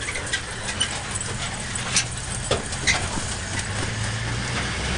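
Open-sided safari 4x4's engine running with a steady low drone, with scattered clicks and knocks from the vehicle, the loudest about two to three seconds in.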